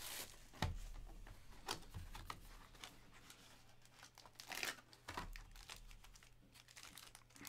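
Clear plastic shrink-wrap being torn and crinkled off a trading-card box, as scattered faint crackles with a few louder rustles.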